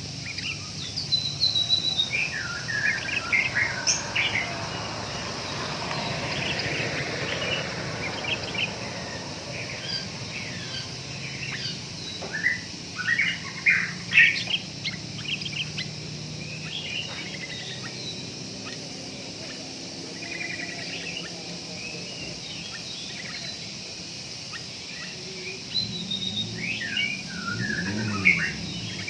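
Sooty-headed bulbuls (kutilang) calling, a string of short chirps and whistled notes that come in clusters, over a steady high hiss.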